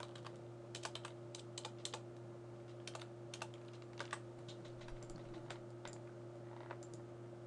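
Faint, scattered computer keyboard keystrokes and mouse clicks, a few quick strokes at a time, over a steady low electrical hum.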